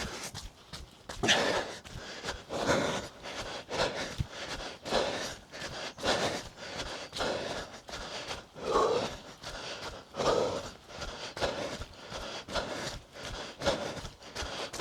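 A runner's heavy, rhythmic breathing, a loud breath about every second, with footfalls on a muddy path between them.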